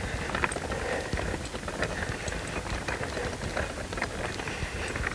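Hand-pulled wagon rolling along, its wheels giving a steady low rumble, with irregular small clicks and footsteps.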